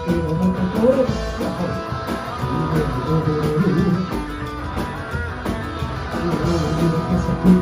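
Rock band playing, with guitar to the fore.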